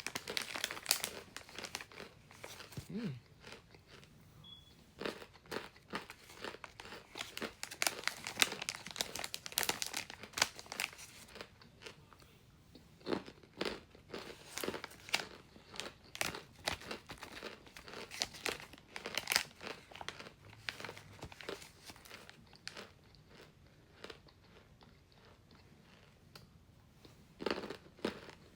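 Toasted Argo cornstarch chunks being bitten and chewed: crisp, crackling crunches, dense and busy for about the first twenty seconds, then thinning out, with a last cluster of bites near the end.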